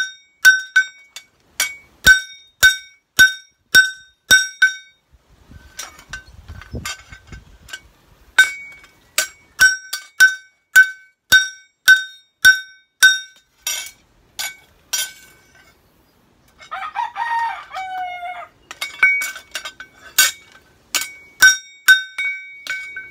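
Hand hammer striking a kitchen knife blade held on a steel anvil while forging it: steady blows about two a second, each with a bright metallic ring, with two short pauses.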